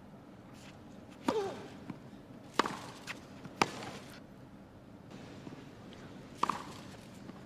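Tennis ball struck by racquets in a rally on a grass court: four sharp hits, the first three about a second apart, then a longer gap before the fourth, with softer ball bounces between.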